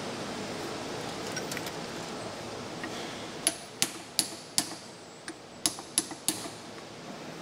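About eight sharp metallic clicks in quick succession, starting about three and a half seconds in, from a brass railway brake-pipe valve fitting clamped in a vise as it is worked by gloved hands. A steady hiss runs underneath.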